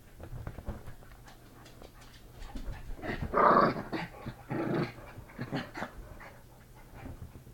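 Pet dogs vocalising in a few short outbursts, the loudest about three seconds in and another around five seconds, with scattered small clicks between.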